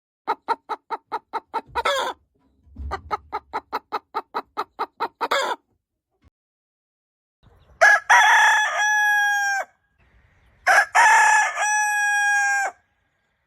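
Chickens clucking in two quick runs of about six clucks a second, the second run ending in a squawk, then a rooster crowing twice, each crow a long held call that drops off at the end.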